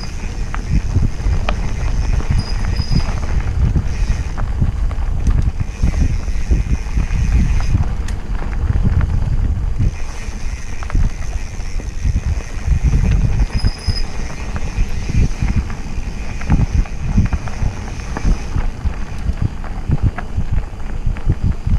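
Mountain bike rolling along a dirt singletrack, picked up by a camera on the bike: a constant, uneven low rumble from the tyres and frame vibration, with frequent small rattles and knocks as it goes over roots and bumps.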